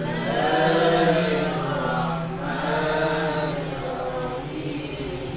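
Qur'an recitation chanted melodically: a man's voice in long, drawn-out phrases, with a steady low tone held beneath.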